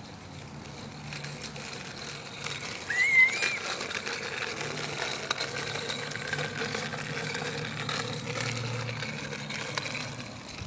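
Small child's bicycle rolling and rattling over leaf-strewn asphalt, with scattered light clicks. A brief high squeal rises and then holds about three seconds in.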